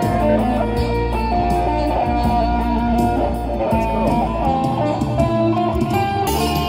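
Electric guitar played live through a small Cube combo amplifier: a melodic lead line of held, sustained notes changing about every half second, over a steady low bass underneath.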